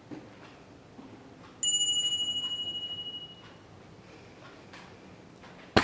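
A single bright bell-like ding about a second and a half in, ringing out and fading over about two seconds with a slight waver. A sharp click comes near the end.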